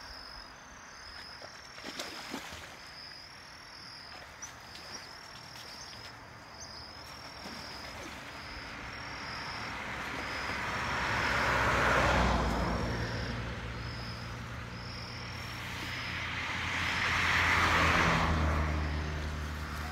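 Outdoor evening ambience: a high-pitched chirp repeats about once a second. Two slow swells of noise build and fade, peaking around the middle and near the end, with a low engine-like hum beneath them, like vehicles passing at a distance.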